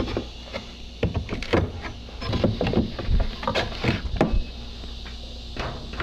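Flat pry bar levering painted wooden door trim off a garage door jamb: a string of sharp knocks and short creaks as the board and its nails work loose.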